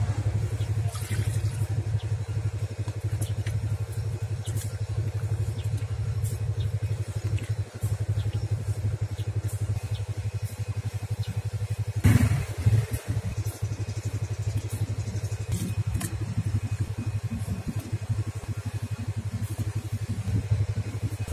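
A small engine running steadily nearby, an even low drone that does not rise or fall. Over it come faint soft clicks and squelches of thick batter being worked by hand in a plastic basin, with one louder knock about twelve seconds in.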